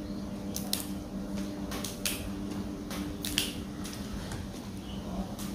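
Crisp snaps of kangkong (water spinach) stems being broken off by hand, about six scattered sharp clicks over a steady low hum.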